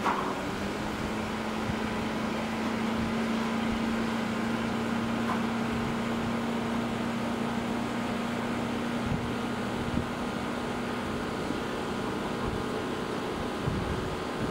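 Steady background noise with a low, even machine hum that fades out about ten seconds in.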